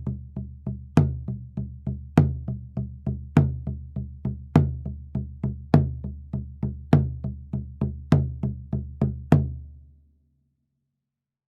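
A short drum and percussion rhythm: sharp hits about three a second with a louder accent every fourth, over a low ringing bass tone. It stops about ten seconds in and rings out.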